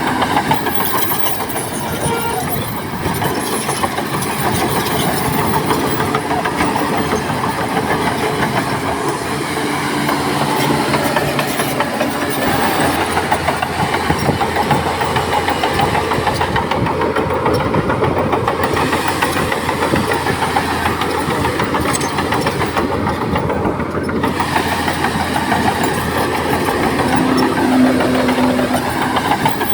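Heavy diesel earthmoving machinery running steadily under work, a dense, continuous engine noise.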